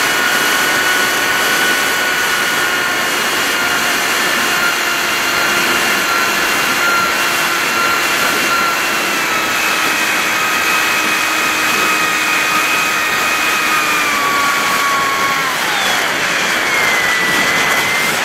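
TBRC Reflex 38 RC model plane's motor and propeller whining steadily over wind rushing past the onboard microphone. The whine sags slowly, then drops sharply in pitch about 15 seconds in as the plane slows and descends toward the grass.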